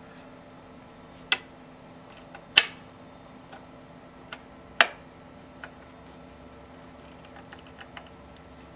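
Sharp metallic clicks and taps, irregular and a second or more apart, the loudest about two and a half seconds in: small metal screws with washers and a screwdriver knocking against the TV's sheet-metal lamp housing as the screws are fitted.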